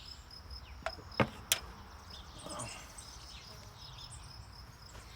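An insect, likely a cricket, chirping steadily in short high pulses about four times a second, with three sharp knocks a little over a second in.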